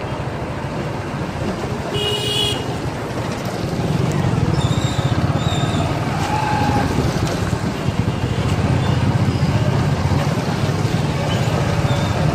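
Busy street traffic at a level crossing: motorcycle and small-vehicle engines running, growing louder a few seconds in. A short horn toot sounds about two seconds in, followed by two brief higher beeps.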